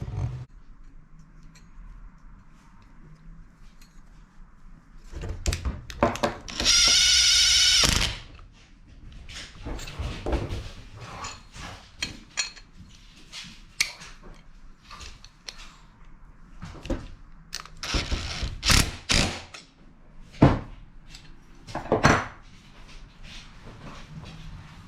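Hand work on tractor parts: scattered knocks, clicks and clatter of tools and hardware being handled, with a loud buzzing sound lasting about a second and a half around seven seconds in and a shorter rasp later on.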